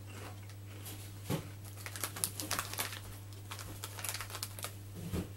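Walkers crisp packet crinkling as it is handled: an irregular scatter of short, sharp crackles.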